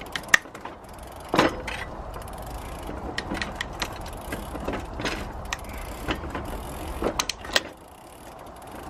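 Bicycle drivetrain turned by hand with the bike lifted, the rear derailleur shifting down through the cassette: a scatter of sharp mechanical clicks as the freshly lubed chain drops onto each cog.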